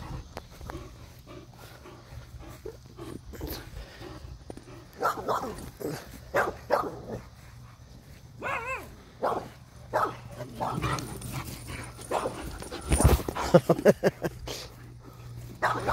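Irish Wolfhound barking in scattered short bursts while it runs about, loudest about thirteen to fourteen seconds in.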